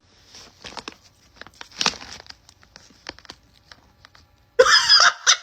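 Soft rustling and crinkling with scattered faint clicks, then a short, loud, rough burst near the end.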